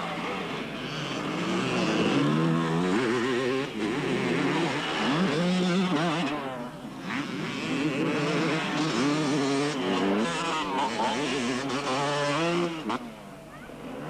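Motocross bike engines revving hard, their pitch repeatedly rising and falling as the riders accelerate and shift along the dirt track. The engines drop away briefly about a second before the end.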